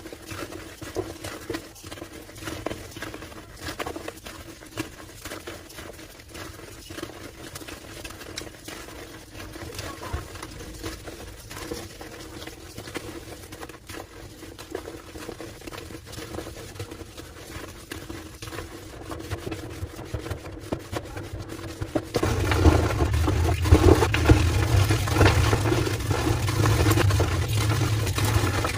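Homemade gym chalk slabs being crushed, with dense crunching and crackling and a squeaky quality. The crushing gets clearly louder and fuller about three quarters of the way through.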